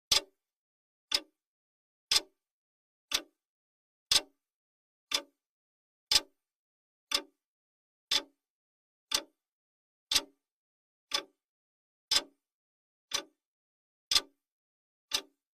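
Countdown timer's clock-tick sound effect: one sharp tick every second, alternating slightly louder and softer like a tick-tock, with silence between ticks.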